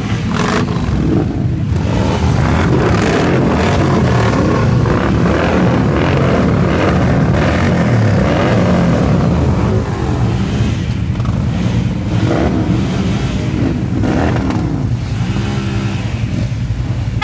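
Several parked motorcycles, Harley-Davidson touring bikes among them, running and revving their V-twin engines together: a loud, continuous din of overlapping revs that swell and fall.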